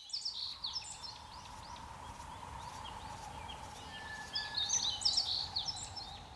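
Small birds chirping and twittering, in two flurries: one at the start and another about four to five seconds in, over a steady background hiss.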